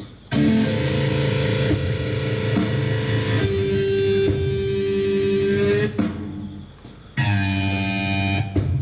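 Guitar music: a held chord comes in sharply and rings for about five and a half seconds before fading. A second chord starts about seven seconds in and stops shortly before the end.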